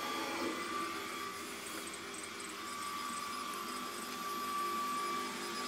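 Woxcker JL7 laser engraver's belt-drive stepper motors whining in short stepped tones as the laser head moves across the work area, over a steady high whine from the running machine.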